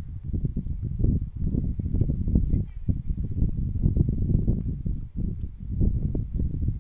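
Background noise: a steady high-pitched chirring band over an irregular low rumble.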